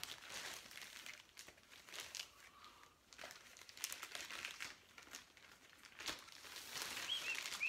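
Clear plastic rod sleeves crinkling and rustling as a fishing rod in its wrapping is handled and pulled from a bundle, with many irregular small crackles.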